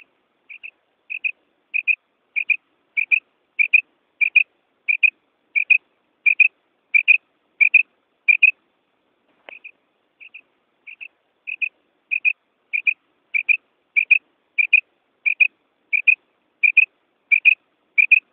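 Female common quail giving its repeated 'krik' call: short doubled notes about every two-thirds of a second, growing louder at first. The calls stop for about two seconds in the middle, then start again and build once more.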